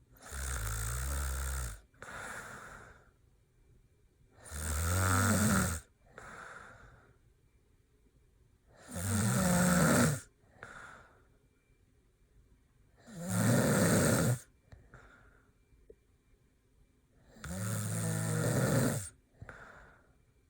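Man snoring hard in deep sleep: five loud snores about four seconds apart, each followed by a shorter, fainter breath.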